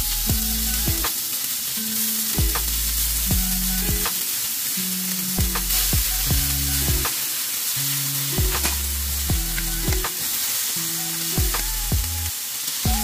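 Strips of marinated beef sizzling steadily as they fry in hot oil in a wok. Background music with a stepping bass line and a regular beat plays under it.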